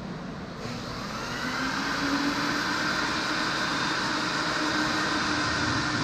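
An electric motor switching on about half a second in, whining up to speed over about a second and then running steadily with a hum, like a vacuum-type cleaning machine.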